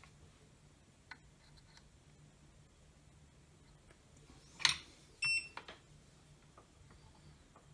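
A sharp click, then about half a second later a short, high electronic beep, over a faint low hum.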